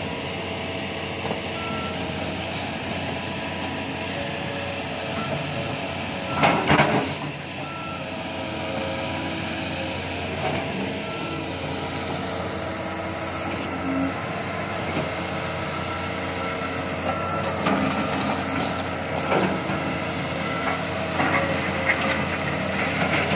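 Doosan hydraulic excavator's diesel engine running under load while it pulls a dead excavator, its travel alarm beeping on and off as it tracks. A brief loud clatter comes about six seconds in.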